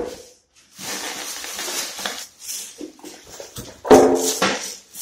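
Plastic wrapping crinkling and polystyrene foam packing rubbing and squeaking as an air conditioner indoor unit is handled in its box, loudest about four seconds in.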